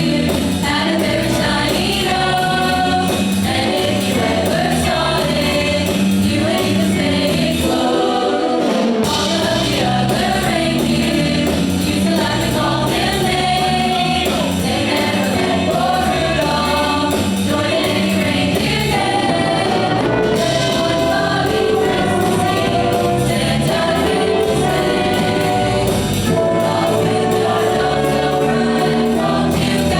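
A choir singing a holiday song with instrumental accompaniment.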